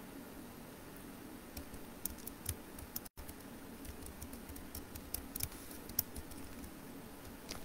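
Typing on a computer keyboard: faint, irregular key clicks over a low steady hum, with the sound cutting out for an instant about three seconds in.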